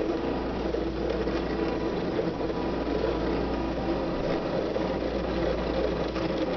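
Cricut Expression die-cutting machine running a cut, its motors whirring steadily as they feed the cutting mat back and forth under the blade. This is a second pass over the same shape, because the cardstock was too hard to cut through the first time.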